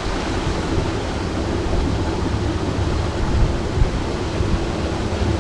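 A steady, even rushing noise with a low rumble and no separate events.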